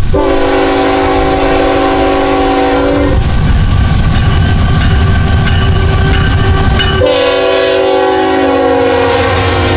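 Air horn of a GE ET44AC diesel locomotive leading a freight train: one long blast of about three seconds, then a second long blast starting about seven seconds in. Under both blasts runs the loud, heavy rumble of the GE diesel locomotives and their wheels on the rails as the train passes close by.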